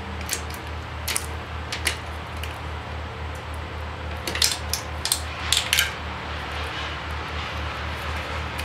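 Hand ratchet clicking and metal tools clinking on the fuel rail's hold-down bolts as they are tightened, a few sharp clicks scattered through with a quick cluster in the middle. Under it, a low hum pulses about five times a second.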